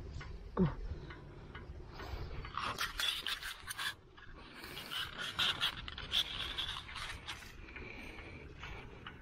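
Footsteps swishing and brushing through tall grass, with irregular scraping noises. A short low sound dropping in pitch about half a second in.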